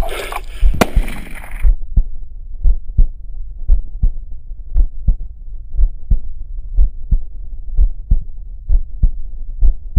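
A heartbeat sound effect: paired low lub-dub thuds about once a second, steady to the end. It is preceded by about a second and a half of rustling field noise with one sharp click.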